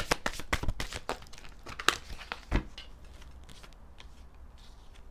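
Tarot cards being shuffled by hand: a quick run of papery slaps that slows and stops about two and a half seconds in, followed by faint handling of the deck.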